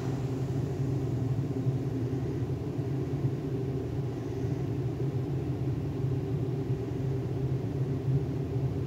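Steady low mechanical hum with a rumble underneath, unchanging in pitch and level.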